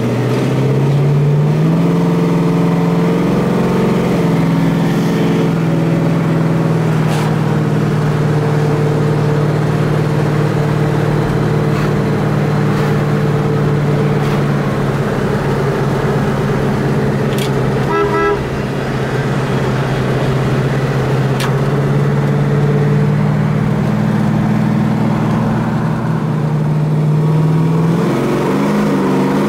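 Crate Hemi V8 of a 1965 Dodge Coronet heard from inside the cabin while driving: the engine note climbs in the first couple of seconds as the car pulls away, then holds steady at cruise and eases off near the end.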